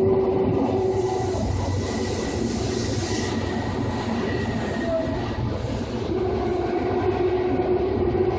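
Seibu 2000 series electric commuter train (set 2075F) running, heard from inside motor car MoHa 2375: steady rumble of wheels on rail with a motor hum tone that fades out about a second and a half in and comes back around six seconds in.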